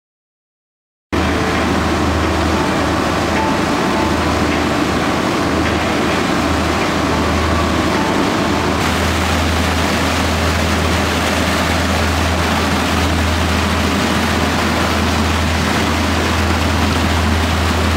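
Small fishing boat under way: its engine running steadily with a deep low hum, under the rush of water churned up in the wake. The sound starts abruptly about a second in, out of silence.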